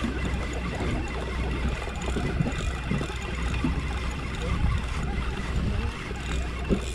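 Steady low rumble of a sportfishing boat's engine under way, while a spinning reel is cranked in by hand.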